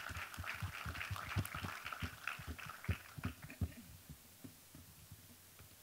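Audience applause, many irregular claps that die away about four seconds in.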